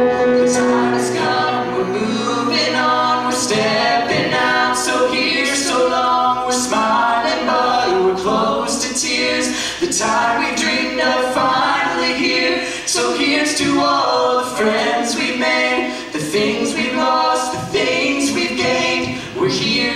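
A young woman singing a song into a handheld microphone, holding notes that change pitch throughout.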